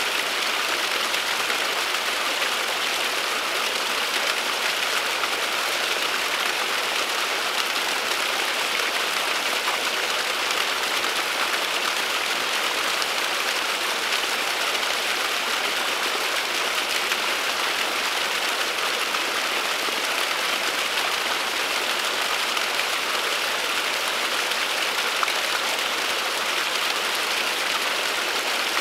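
Small waterfall splashing steadily: an even, unbroken rush of falling water.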